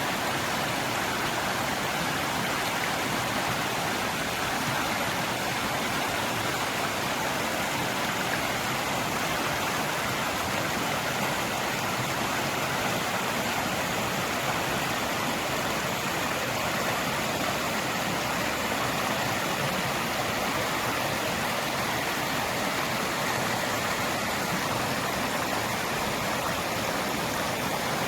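Great Langdale Beck, a fast upland river, rushing and splashing over rocks in a steady, unbroken wash.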